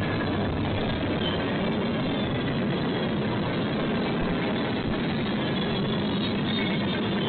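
Freight train rolling past, a steady rumble of railcars and wheels on the rails with no change in level.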